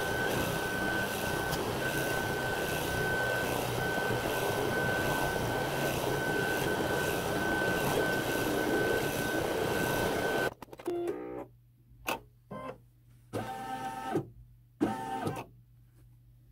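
Baby Lock embroidery machine stitching: a steady whir with a high, even whine. It cuts off abruptly about ten seconds in, and a few short, separate sounds follow.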